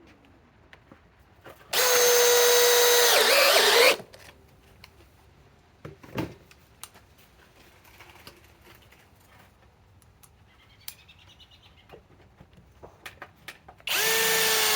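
Cordless compact hammer drill driving a #14 x 3/4 sheet metal screw into sheet metal: a steady motor whine for about two seconds, its pitch sagging as the screw bites and seats. A second drill starts driving a screw near the end.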